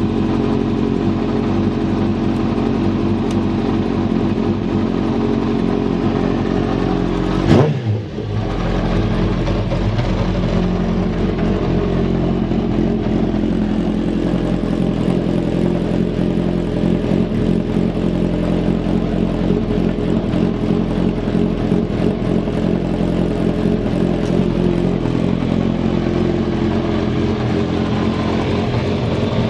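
Kawasaki ZX-10R inline-four motorcycle engine idling steadily, with one quick throttle blip about seven seconds in that rises and falls straight back to idle. The idle is stable with no abnormal noise, as the seller describes it.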